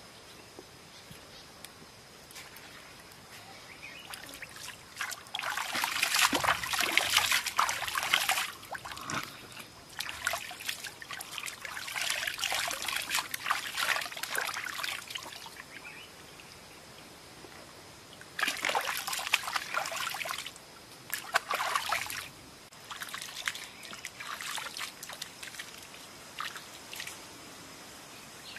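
Water pouring and splashing in several separate bursts of a few seconds each.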